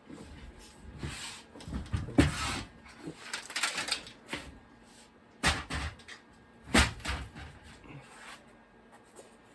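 Hands handling and taking apart an old desktop computer's case and parts: scraping and rubbing, then two sharp knocks a little over a second apart, and a few lighter clicks.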